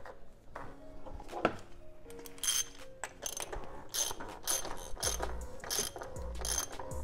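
Socket ratchet clicking in repeated back-swings, tightening the oil filter housing cap on a BMW N54 engine, starting about two and a half seconds in.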